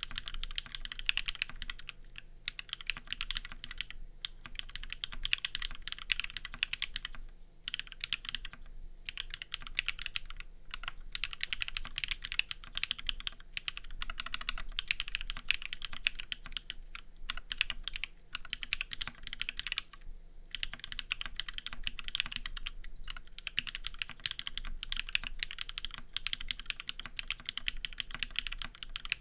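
Continuous fast typing on a TGR Dolice Alice-layout mechanical keyboard fitted with BSUN BCP switches on an aluminium plate and Linworks retro keycaps. The keystroke clacks run as a dense, even stream, broken by a few brief pauses.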